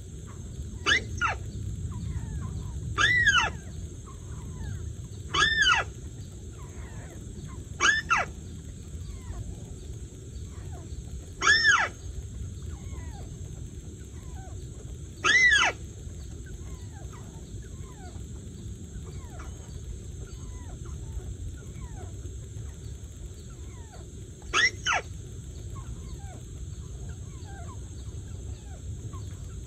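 Bird calls from an electronic hunting lure set beside the trap: about seven loud, short calls with overtones, each bending up and then down in pitch, at irregular gaps of two to nine seconds, over a steady low rumble.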